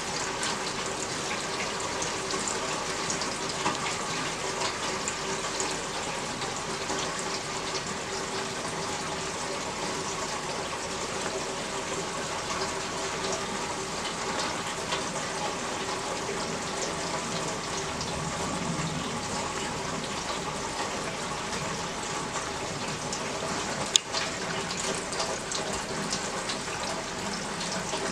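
Steady rain falling, with a constant rush of running, splashing water. A single sharp click near the end.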